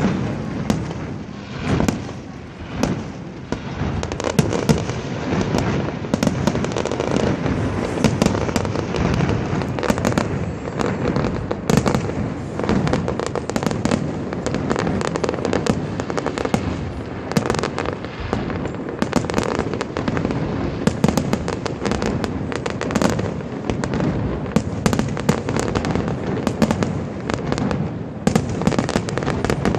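Fireworks display: a dense, continuous barrage of bangs and crackling, shells bursting in rapid succession with rumbling echoes.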